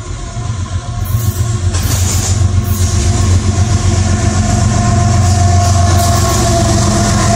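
Train going by, a deep engine rumble and rail noise growing louder over the first few seconds, then holding steady.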